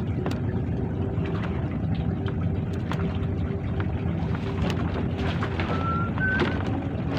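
A motor running with a steady low drone, with wind on the microphone and light clicks from handling fishing tackle. Two brief high chirps come about six seconds in.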